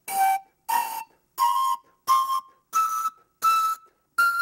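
Homemade panpipes of black plastic straws stoppered with modeling clay, blown one pipe at a time: about seven short, breathy notes climbing step by step in a rising scale.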